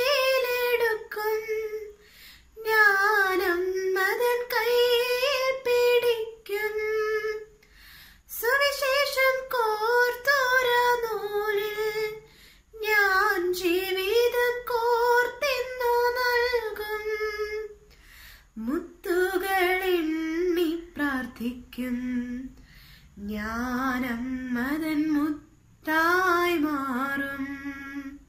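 A young woman singing a Malayalam Marian hymn solo and unaccompanied, in phrases of a few seconds with short pauses for breath between them. From about two-thirds of the way in, the melody moves to a lower range.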